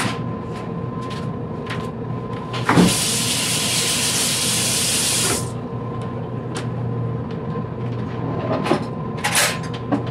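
Kitchen work sounds: scattered light clicks and taps, and in the middle a loud steady hiss lasting about three seconds that starts with a knock and stops abruptly.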